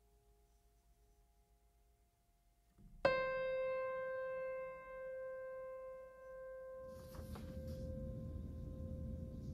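A single piano-like note struck about three seconds in, ringing on and slowly fading. Near the end, a low room rumble and a few crisp rustles of a sheet of paper being handled.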